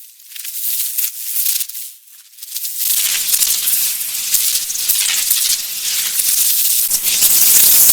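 Designed electrical crackle sound effect made from a duct tape recording, processed with distortion-type plugins and a high-pass filter so the highs stand out. Scattered crackles for about the first three seconds, then a dense, steady high crackling hiss, meant as a nice electrical hum.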